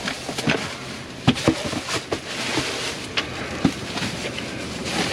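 Rummaging through discarded goods in a dumpster: rustling and shifting of items, with several sharp knocks and clicks as things are moved and set down.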